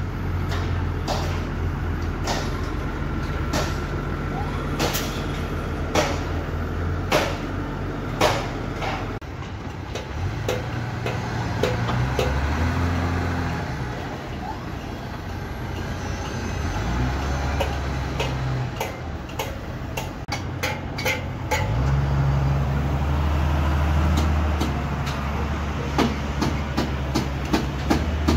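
Diesel engines of heavy construction machinery running, the engine note rising and falling in steps, with repeated sharp metallic clanks and knocks.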